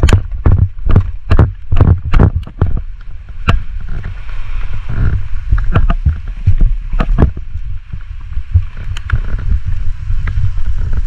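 Storm wind and rain buffeting the microphone in a heavy low rumble, with irregular sharp clicks and knocks scattered through it, most of them close together in the first few seconds.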